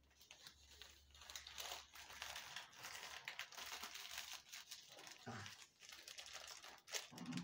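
Faint crinkling and rustling of plastic as a plastic bottle and detergent are handled, mixing soapy water to use as a cable-pulling lubricant for conduit.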